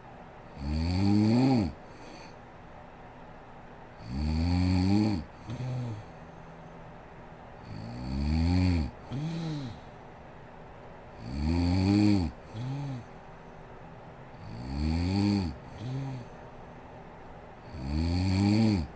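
A sleeping woman snoring loudly in a steady rhythm, about one snore every three and a half to four seconds, six in all. Each long, rasping snore is followed by a short second snort.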